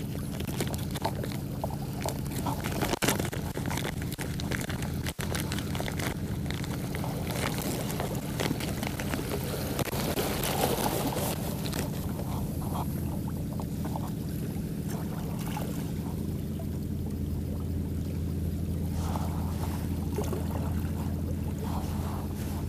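A boat's engine running with a steady low hum while water splashes and sloshes, busiest about ten seconds in. Two sharp knocks come about three and five seconds in.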